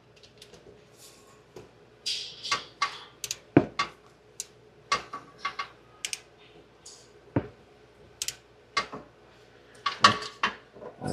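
Hand ratchet wrench clicking in short strokes while working an oil-pump mounting bolt, with light metal tool clinks. The clicks come irregularly, with a few louder knocks.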